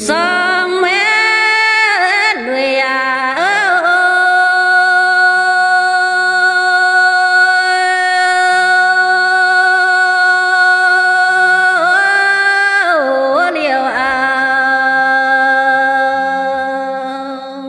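A woman singing unaccompanied in the Dao people's hát lượn folk style: ornamented slides in the first few seconds, then one long held note of about eight seconds, more sliding turns about twelve seconds in, and another held note that fades near the end.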